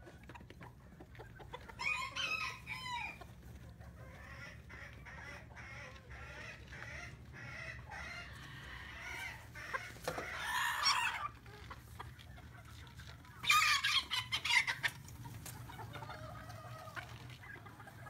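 Chickens clucking and calling, with a rooster crowing among three louder calls; the loudest comes about three-quarters of the way through.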